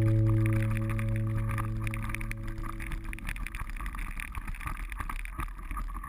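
A held chord of background music fades out over the first few seconds. It leaves a rattling, rustling noise from a mountain bike riding fast over a leaf-covered dirt trail, which also fades down.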